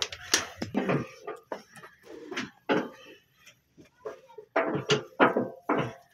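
Irregular metallic clanks and knocks from hands working the levers and fittings of an old black diesel engine that is not running.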